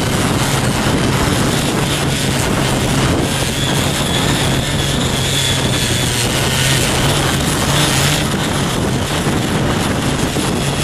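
Small engine of a CY50 mini foldable cultivator running steadily under load while its rotary tines, a blade set made for 7 hp tillers, deep-till the soil.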